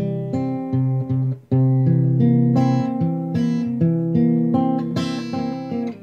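Acoustic guitar playing on its own, a steady pattern of plucked chords with no voice: an instrumental passage between sung verses.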